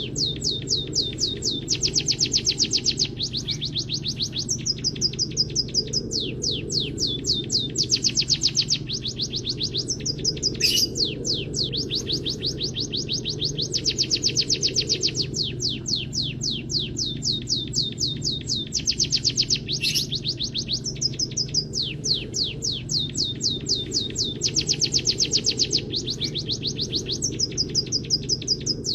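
Recorded munia and canary song: fast, dense chirping trills in phrases that repeat every couple of seconds, with a couple of sharp high chips, over a steady low hum.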